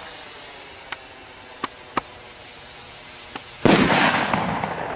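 Firework rocket shell bursting high up with one sudden loud bang about three and a half seconds in, followed by a fading crackle. Before it, a few small sharp cracks over a faint hiss.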